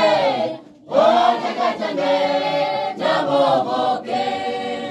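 A mixed choir of men and women singing together in harmony, one phrase breaking off just under a second in and the next starting right after.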